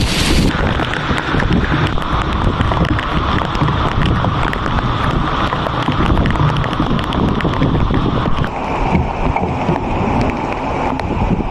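Heavy rain falling steadily, with many sharp drop taps, and wind rumbling on the microphone.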